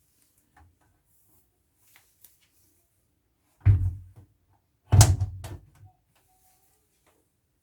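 Two heavy thumps about a second apart, each followed by a short rattle, with a few faint clicks before them.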